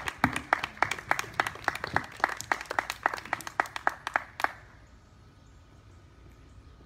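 An audience clapping after a speech, sharp separate claps at about four a second, stopping about four and a half seconds in.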